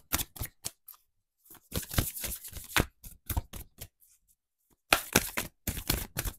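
A deck of oracle cards shuffled by hand: several runs of quick papery flicks and slides of card on card, with short pauses between the runs.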